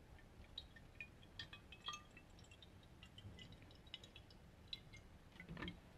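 Faint pouring of apple juice into a glass swing-top bottle: light trickling with scattered small drips and glassy clinks.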